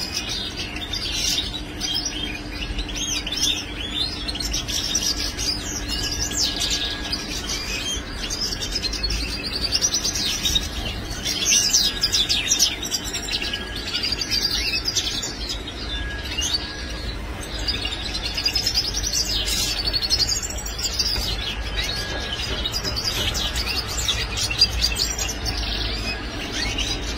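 European goldfinches twittering and chirping, with dense, rapid high trills that go on without a break.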